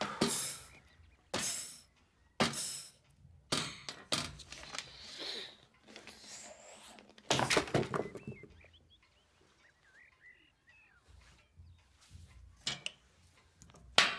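Light knocks and clatters at a table, then near the end one sharp tap of a pencil's end on the tabletop: the agreed signal that something is very important.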